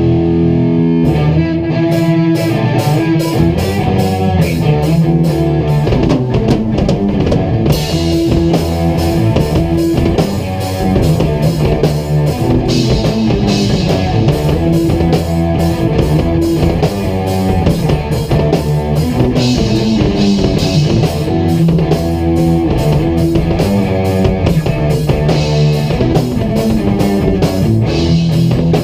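A rock band jamming live on electric guitars and a drum kit, with a steady drumbeat and cymbals under the guitars.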